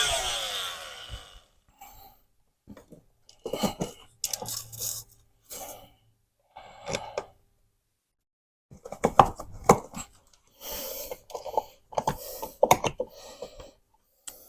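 A power tool winds down in the first second, then come intermittent scraping, clicking and knocking as a telephone wall box is worked loose from drywall, hung up on a nail bracket.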